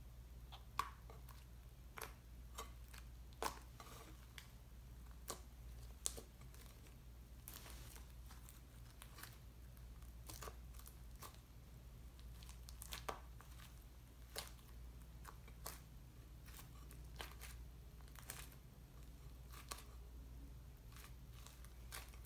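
Hands squishing and kneading a butter slime with Daiso clay and glitter worked in, giving faint, irregular sticky clicks and crackles, with a low steady hum underneath.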